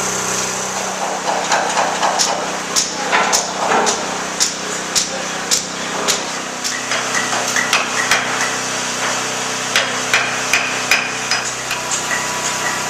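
Hammer blows on metal, a string of sharp irregular strikes about two a second, the later ones ringing briefly, over a steady machine hum.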